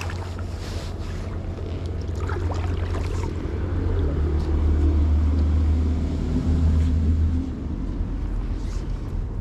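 Wind buffeting the camera's microphone: a steady low rumble that grows louder through the middle and eases near the end.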